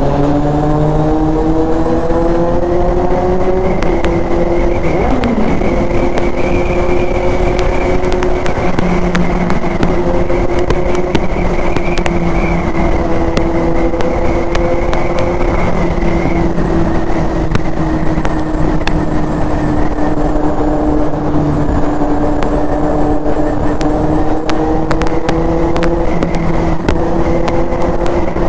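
Superbike with an aftermarket SC Project exhaust, its engine note rising over the first few seconds as it accelerates, then holding steady at cruising revs, echoing in a road tunnel. A brief falling pitch sounds about five seconds in, and a steady rush of wind noise runs underneath.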